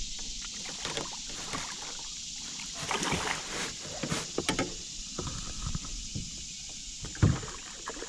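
A hooked carp thrashing and splashing at the water's surface right beside a canoe, with irregular knocks and bumps against the hull; one loud thump comes a little after seven seconds.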